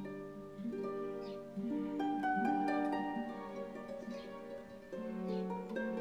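Background music: plucked strings playing a slow, gentle melody of held notes.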